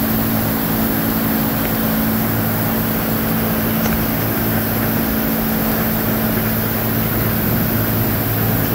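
Heavy rain pouring down in a severe thunderstorm, a steady hiss, with a constant low engine hum underneath.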